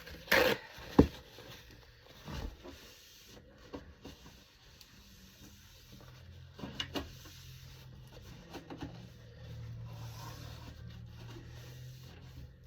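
Handling noises from wiping and clearing out a refrigerator: a sharp knock about a second in, then scattered light clicks and rustles.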